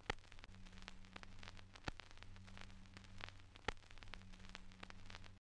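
Faint static crackle: a light hiss with scattered sharp clicks over a low steady hum.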